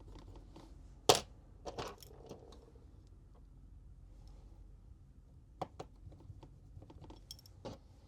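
Scattered sharp clicks and taps of small repair tools and phone parts being handled on a work surface, the loudest about a second in, with a few more around two seconds and again near the end.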